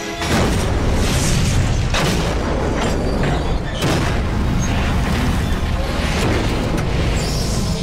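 Movie sound effects of two trains colliding in a tunnel and exploding: a sudden loud crash just after the start, then a continuous booming rumble of fire and wreckage with several fresh surges.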